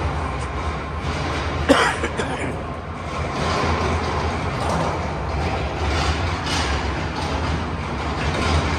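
Steady ambient noise of a large exhibition hall: a low rumble under a wash of indistinct background noise, with one sharp knock a little under two seconds in.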